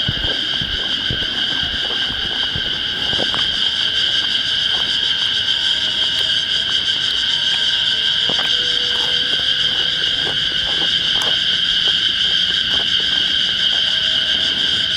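Cicadas droning in one steady, high-pitched buzz that gets a little louder about three seconds in. Faint scattered clicks and knocks sound underneath.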